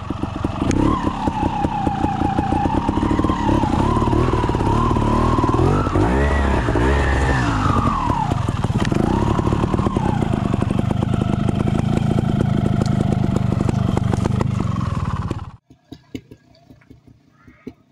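TRS trials motorcycle's two-stroke engine running under a rider's throttle, the revs wandering up and down with a sharp rise about six seconds in. The engine sound cuts off abruptly about fifteen seconds in, leaving only faint background noise.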